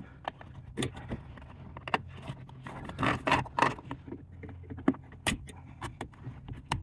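Irregular metallic clicks and short rattles of hand tools and small metal parts being worked inside a car's steering column, over a steady low hum.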